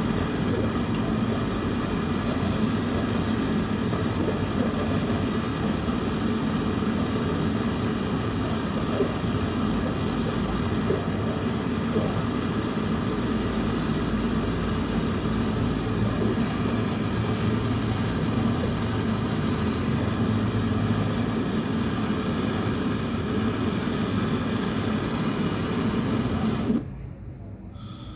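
Steady mechanical hum of a running electric motor-driven machine, cutting off abruptly about a second before the end.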